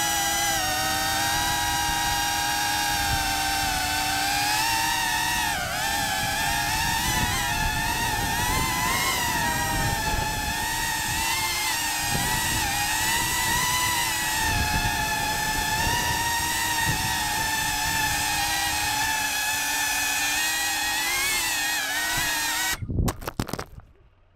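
FPV racing drone's motors whining, the pitch wavering up and down with the throttle, over rushing wind noise. Near the end a few hard knocks as the drone crashes into rocks, and the motor whine cuts out abruptly.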